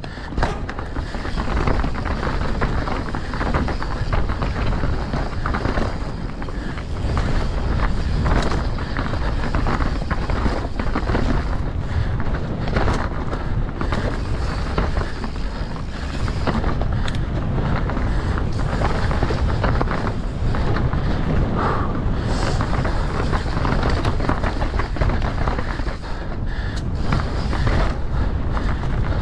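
Mountain bike ridden hard down a rough trail: wind on the microphone, tyres rolling over the ground, and the bike rattling with frequent knocks and clatters.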